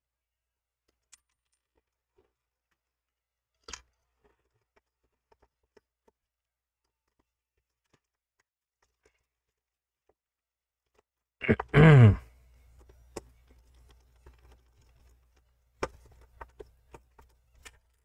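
Small scattered clicks of metal screws and plastic fan frames being handled as the long screws are threaded by hand through the cooler's fans into the radiator. About twelve seconds in there is a short loud sound falling in pitch, followed by a faint low hum.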